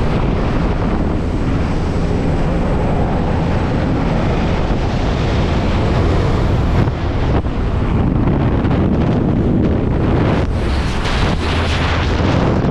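Loud, steady rush of wind and aircraft engine noise at the open door of a skydiving jump plane, buffeting the microphone. Near the end it turns into gustier freefall wind as the jumpers leave the plane.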